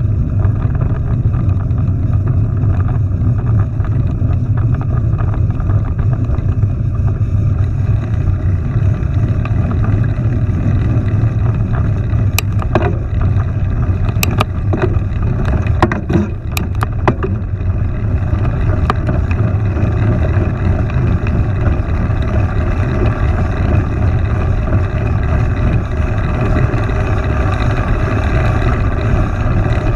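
Steady, loud low rumble of wind buffeting the microphone, with a cluster of sharp clicks and knocks around the middle.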